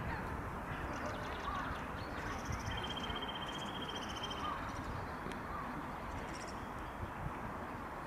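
Birds calling over a steady background rumble: short rising calls every second or so, and a rapid high trill starting about three seconds in and lasting under two seconds.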